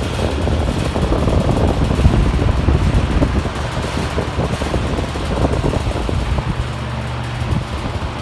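Vintage Lasco General Deluxe 20-inch oscillating box fan running on high speed: a loud, steady rush of air from its four swept-back blades, with the grilles rattling a little. The low end of the sound shifts about six and a half seconds in.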